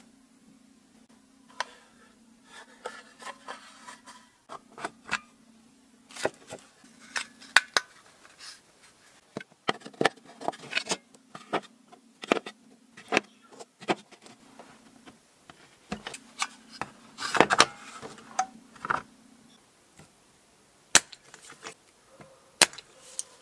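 Cylindrical lithium-ion cells and a plastic battery-pack case being handled, giving many irregular sharp clicks and knocks as the cells are set into the case. A faint steady hum runs underneath and stops near the end.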